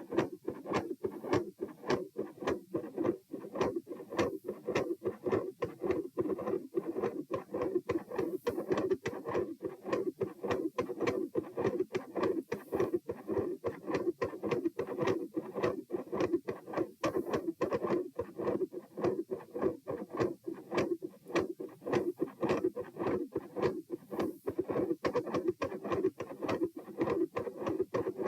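Heartbeats recorded at the chest: repeated valve clicks over a continuous machinery-like murmur around the second heart sound, resembling the murmur of a patent ductus arteriosus (PDA), which the uploader suspects could come from left-to-right pressure. The murmur fades in and out.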